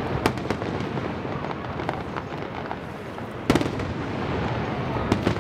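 Aerial firework shells bursting: sharp bangs, the loudest about three and a half seconds in and two close together near the end, with smaller pops in between over a continuous low rumble.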